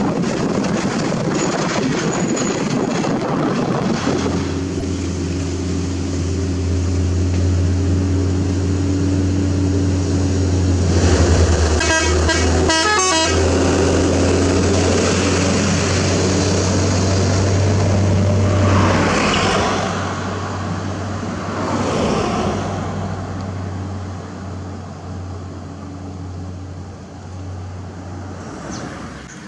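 Wind and road noise at first, then the diesel engine of an Isuzu Giga self-loader truck running with a steady low drone as it comes up close and passes. A horn sounds in a quick run of toots about 12 s in, a couple of vehicles go by with rising and falling pitch around 19–22 s, and the engine fades as the truck moves away.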